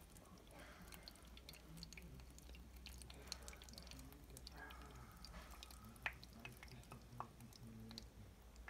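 Faint dripping and trickling of brewed coffee into a stainless steel server as an AeroPress plunger is pressed slowly down, with a few small clicks.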